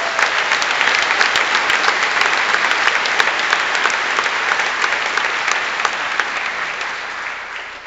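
Large audience applauding: dense, steady clapping that tapers off near the end.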